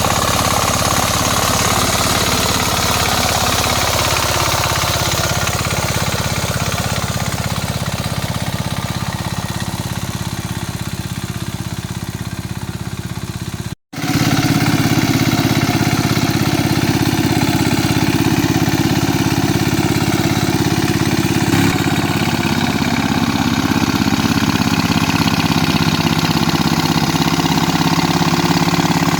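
Mini tractor engine running steadily. It cuts out completely for an instant about halfway through, then resumes louder and deeper.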